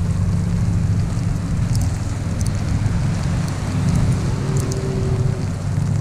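Wind buffeting the microphone in an icy snowstorm: a steady low rumble, with scattered light ticks of falling ice.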